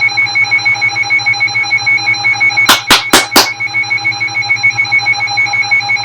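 An electronic alarm tone ringing continuously in a rapid pulse, with four sharp clicks close together a little under three seconds in.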